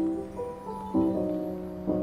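Soft background music, with new plucked notes coming in about once a second over held tones.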